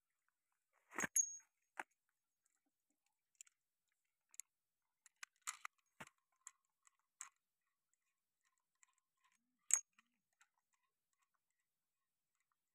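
Small metal parts of a tractor's hydraulic distributor clicking and clinking as a control valve, washer and fittings are handled and pushed into place by hand. Scattered single clicks, the loudest about a second in and again near ten seconds.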